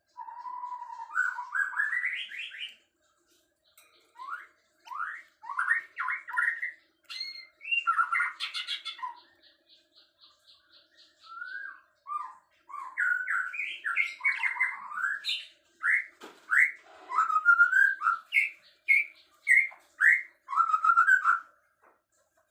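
A songbird singing a varied series of short whistled phrases that slide up and down in pitch, with a quick run of rapid, evenly spaced ticks about halfway through.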